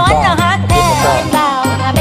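Background music: an Isan-dialect Thai song, here a passage without words, with a bending lead melody over a steady bass and beat.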